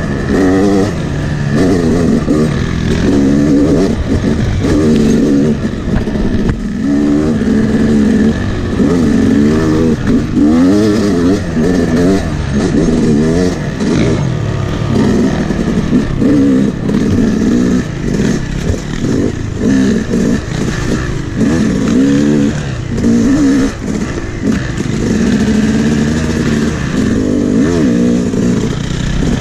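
Two-stroke Yamaha YZ250X dirt bike engine being ridden hard, its revs rising and falling every second or so as the throttle is opened and closed.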